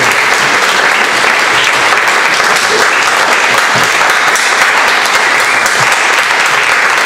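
Theater audience applauding steadily: dense, loud clapping with no break.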